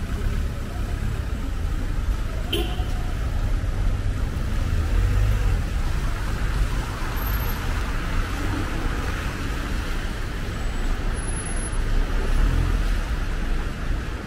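Road traffic noise on a city street: a steady wash of passing cars and engines, with a short click a few seconds in.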